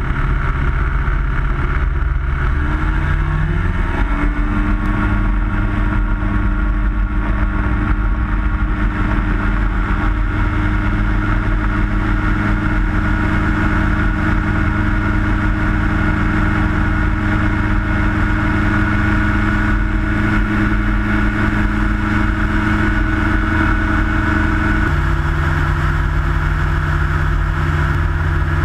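Minimax light aircraft's engine and propeller running at high power. The engine note climbs a few seconds in as it runs up for takeoff from the grass strip, then holds steady in the climb. Near the end the note shifts as the power setting changes.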